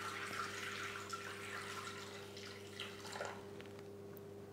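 Water being poured into a Thermomix mixing bowl, a faint splashing trickle that thins out after about three seconds. A steady low hum runs underneath.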